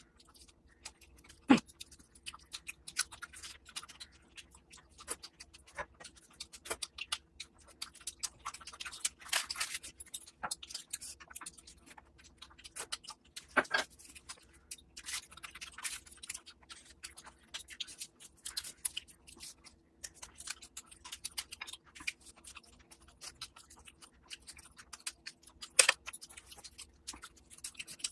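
Close-miked eating of mutton curry with luchi by hand: irregular wet clicks, smacks and crackles of chewing and handling the food, with two sharper clicks, one near the start and one near the end. A faint steady hum sits underneath.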